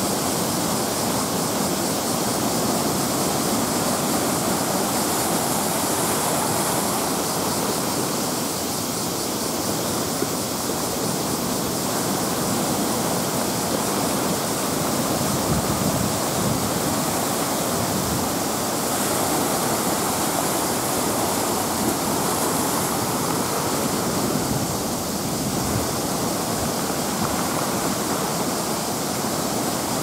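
Typhoon waves breaking against a concrete breakwater and rocks, with surf pouring back off them: a steady, unbroken rush of heavy surf with no separate crashes standing out.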